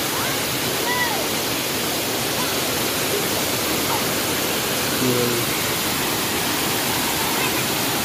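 Waterfall: water rushing steadily over rocky cascades in a loud, even roar, with faint voices now and then underneath.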